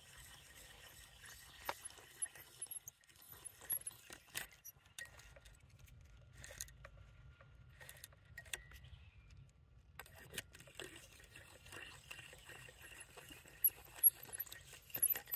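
Timberline hand-crank chainsaw sharpener filing the teeth of a saw chain: the carbide cutter scrapes each tooth and the chain links clink as the chain is moved along the bar. Faint, with scattered clicks, a quieter stretch in the middle and a few louder clicks near the end.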